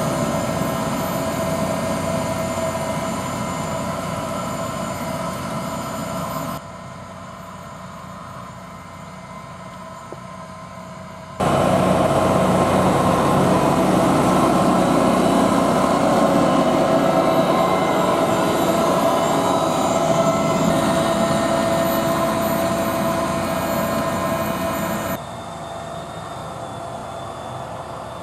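Fendt 826 Vario tractor's six-cylinder diesel engine running under steady load while pulling a spading machine and precision seeder through a field, with a steady whine over the engine. The loudness drops sharply about six seconds in, rises again about eleven seconds in and falls once more near the end.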